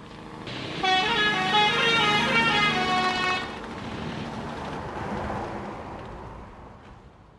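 Bus 'telolet' musical horn playing a quick run of stepping notes for about two and a half seconds, over a steady street-like noise that fades away near the end.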